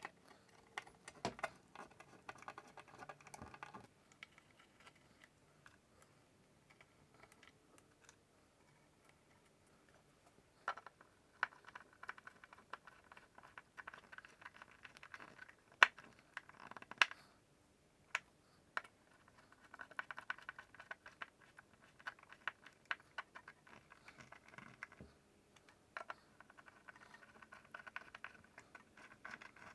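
Small screws being driven by hand into the wooden case's hinge holes, which are packed with toothpicks: several bursts of quick clicking and scraping from the screwdriver, with a few sharper clicks between them.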